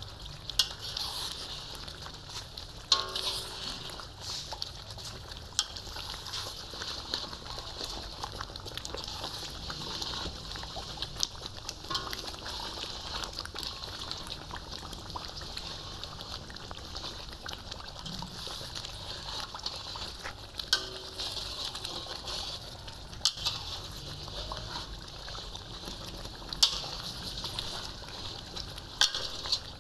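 Sohan halwa mixture sizzling and bubbling in ghee in an iron karahi as a metal spatula stirs and scrapes it, with sharp clicks every few seconds where the spatula strikes the pan. The halwa is in its final stage of cooking.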